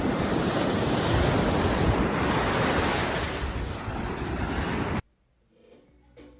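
Loud, steady rush of water with wind buffeting the microphone, cut off abruptly about five seconds in. Soft music with plucked notes begins near the end.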